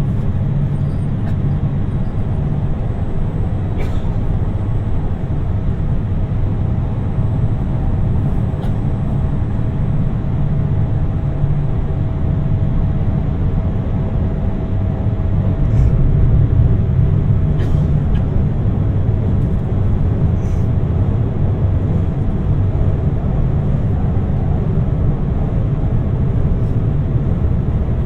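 Inside the cabin of a JR Shikoku 2700 series diesel express train under way: a steady low running rumble with a faint steady whine above it. It grows slightly louder about sixteen seconds in, and a few faint clicks are heard.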